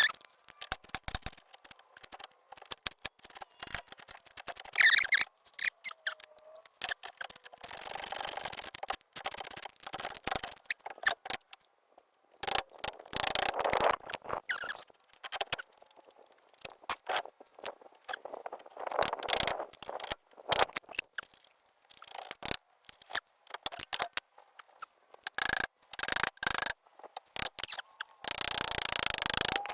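Hand tools and metal parts clinking, knocking and scraping irregularly as a new CV axle and front hub assembly are worked into place, with a longer scrape near the end.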